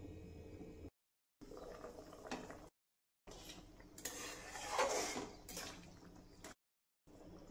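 Cooking in a steel kadhai: a wooden spatula stirs the simmering taro-and-potato curry and scrapes the pan, with a few clinks. The sound comes in short stretches cut off abruptly by brief silences, the scraping loudest about four to five seconds in.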